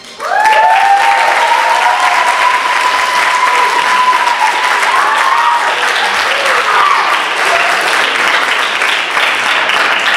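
Audience bursting into loud applause and cheering just after the song ends, with long high whoops over the clapping in the first few seconds.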